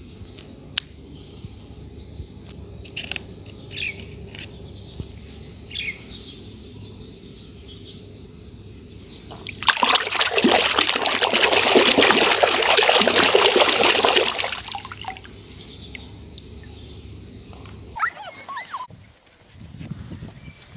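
Water splashing and sloshing for about five seconds, starting about ten seconds in, as a hand scrubs a plastic toy horse in a basin of water.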